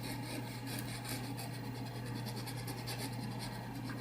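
Paintbrush scrubbing oil paint onto canvas in rapid repeated strokes, working a thin glaze with almost no thinner, over a steady low hum.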